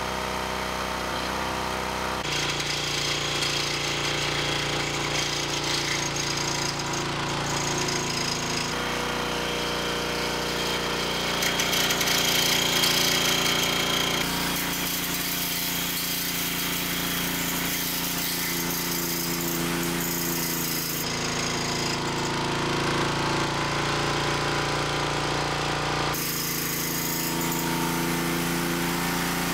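Small single-cylinder gas engines running steadily with no oil in the crankcase, treated only with oil additive. The Lucas-treated engine is starting to run hotter. The tone changes abruptly several times.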